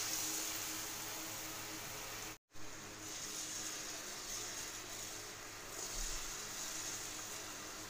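Jalebi batter sizzling as it fries in hot oil in a kadai: a steady hiss that cuts out for a moment about two and a half seconds in.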